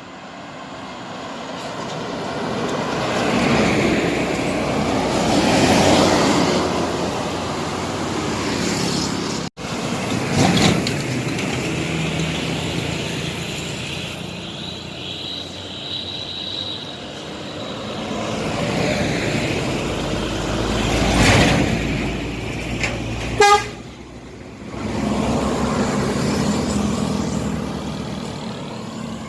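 Large buses passing one after another, each swelling up and fading away with engine and tyre noise, with multi-tone 'telolet' horns sounding. There is a brief cut in the sound about a third of the way in.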